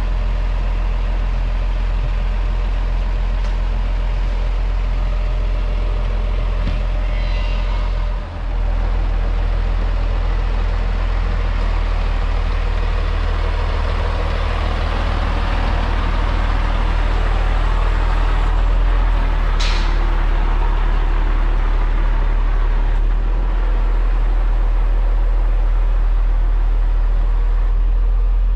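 Diesel engine of a MAN crane truck running steadily with a deep drone, and a brief hiss about twenty seconds in.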